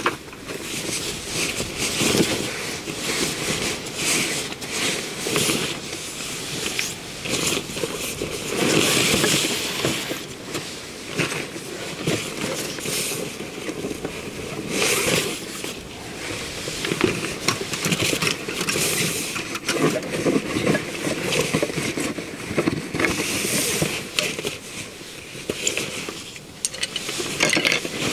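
Nylon backpack and stuff sacks rustling and scraping as camping gear is pulled out by hand and set down, in irregular bursts.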